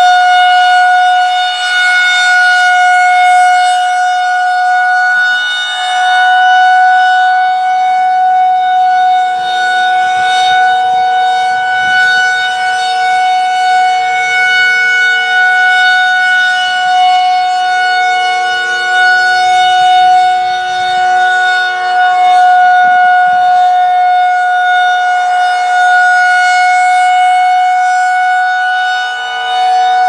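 Federal Signal 2001-130 rotating electromechanical tornado siren sounding a steady one-minute alert tone. The pitch holds level, and the loudness swells and fades every few seconds as the turning horn sweeps past.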